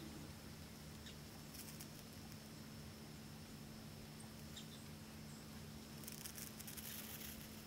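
Near quiet: faint dry rustling twice, about one and a half seconds in and again near the end, with a few soft ticks, over a steady low hum from the recording.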